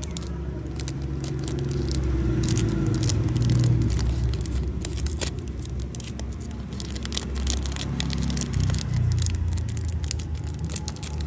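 Irregular clicks and scrapes from a boxed Zippo lighter and its packaging being handled, over a steady low rumble.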